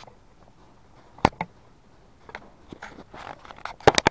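Handling noise: a few sharp clicks and knocks spread out, with two loud ones close together near the end as the camera is jostled.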